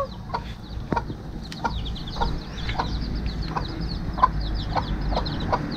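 Chicks peeping rapidly in short, thin, high cheeps, with a hen's short, low clucks every half second or so.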